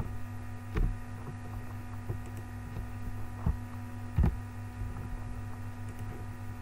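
Steady mains hum on the recording, with a few faint keyboard and mouse clicks and two low thumps, about a second in and just after four seconds in.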